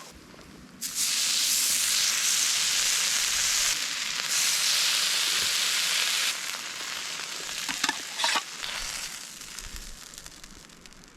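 Food sizzling in a hot frying pan: a loud hiss starts suddenly about a second in as it hits the pan, dips briefly, and eases after about six seconds, with a few clicks and pops near eight seconds.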